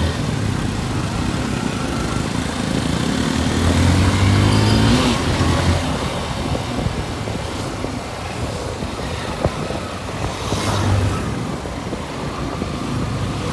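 Engine and road noise while riding a motorcycle, with the engine note rising and growing louder about four to five seconds in.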